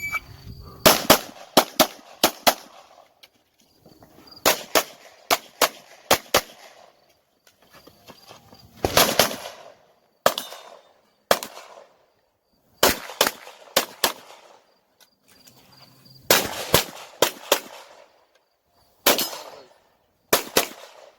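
A short shot-timer beep, then a Glock pistol fired in quick strings of two to six shots, with brief pauses between strings as the shooter moves between targets and reloads.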